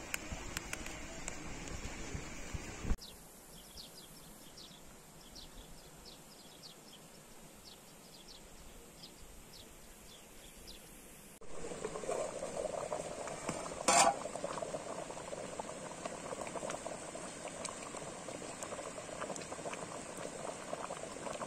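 A pot of lamb stew bubbling at a boil. It is heard from about halfway through, with one sharp clink partway in. Before it, after an abrupt cut about three seconds in, comes a quieter stretch with faint, quick high ticks.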